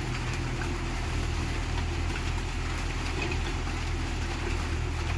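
Diesel engine of a Komatsu PC 81 excavator running steadily with a low, even drone.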